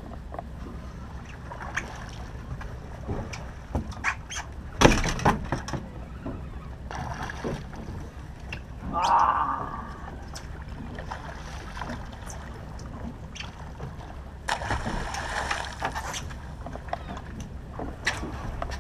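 Steady low hum of the charter boat's engine, with water sloshing against the hull and scattered clicks and knocks of rods and reels; one loud knock about five seconds in and a short louder sound around nine seconds in.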